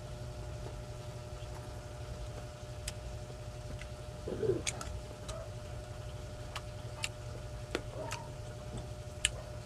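Close-up eating sounds: scattered short, sharp clicks from chewing rice and from a wooden spoon scooping rice off a tray, over a steady low hum.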